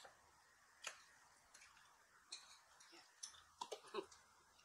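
Faint, scattered clicks of forks against plastic bowls and soft mouth sounds as spaghetti is eaten, over near silence.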